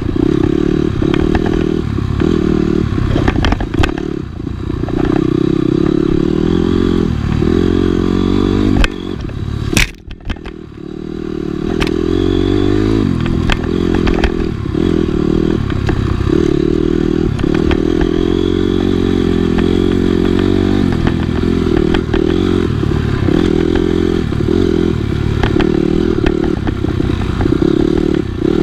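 Dirt bike engine heard from on the bike during a trail ride, revving up and down with the throttle and over frequent small knocks. About ten seconds in, a sharp crack sounds and the engine note drops away briefly before picking back up.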